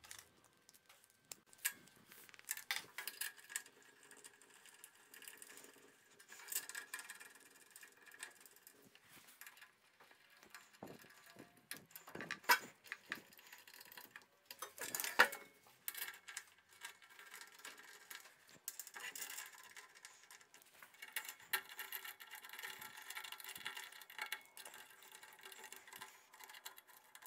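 Metal parts of a Kity 1619 table saw's crosscut carriage being handled and fitted by hand: scattered light clicks and knocks, with two louder knocks around the middle. A stretch of faint scraping and rattling follows near the end.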